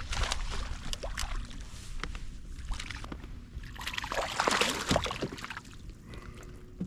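Water sloshing and splashing around a kayak, with a few light knocks and a louder splash about four to five seconds in.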